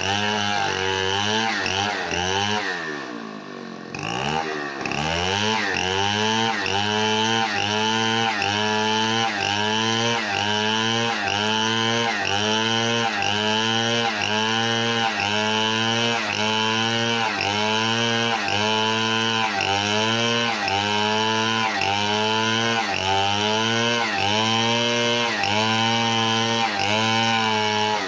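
Small two-stroke chainsaw engine running off the wood, its speed rising and falling in an even rhythm about one and a half times a second. About three seconds in it sags low, then picks back up.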